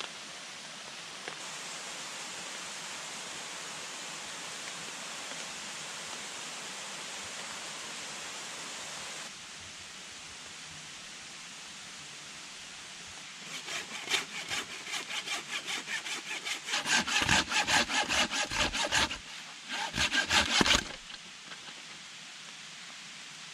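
Steady rushing of water, then, about halfway through, a hand saw cutting a wooden branch in quick back-and-forth strokes, about three a second, growing louder before it stops near the end.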